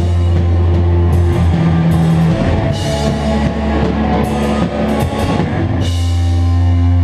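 Rock band playing live: electric bass, distorted electric guitar and a drum kit with repeated cymbal crashes. About six seconds in, the band hits a last crash and holds a sustained chord that rings on.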